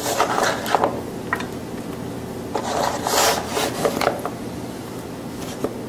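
Sliced carrots being scraped off a plastic cutting board onto fish in a glass baking dish: two rasping scrapes, the first in the opening second and the second about halfway through, with a few light clicks of slices dropping in between.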